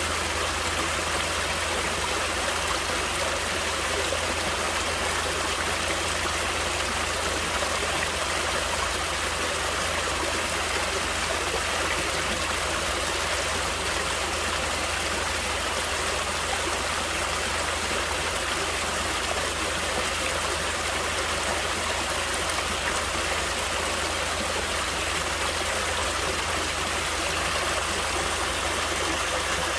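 Stream water flowing over rocks, a steady rushing with a trickling, splashing texture that never changes.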